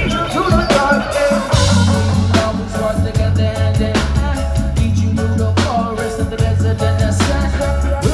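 Live reggae-rock band playing: drums, electric guitars and keyboard over a loud, heavy bass line.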